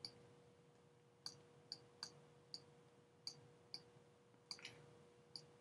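Near silence with about ten faint, sharp clicks at irregular intervals and a faint steady hum underneath.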